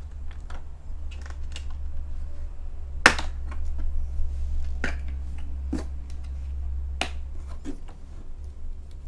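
Plastic latches of a moulded plastic socket-set case being worked open: four sharp clicks over a few seconds, the loudest about three seconds in. A steady low hum runs underneath.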